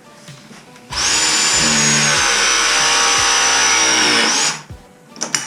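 A battery-powered tool motor running under load for about three and a half seconds, its high whine sagging slightly in pitch and rising again just before it stops. A few knocks and clinks follow near the end.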